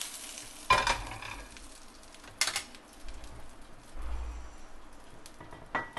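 Scattered knocks and clinks of cookware and utensils being handled, three sharper ones about a second in, about two and a half seconds in and near the end, with a dull low thump in between.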